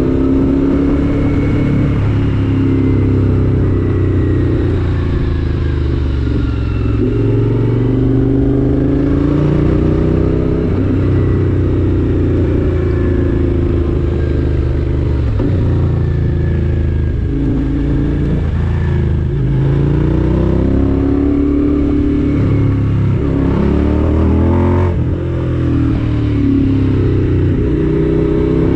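A vehicle's engine accelerating and easing off again and again, its pitch climbing and falling every few seconds, with a brief dip in level near the end.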